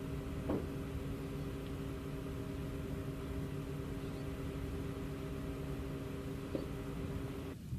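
Steady machine hum holding several fixed tones over a low rumble, with two faint clicks, cutting off suddenly near the end.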